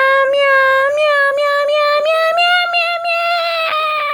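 A long, drawn-out meow-like wail held on one high pitch that rises a little midway.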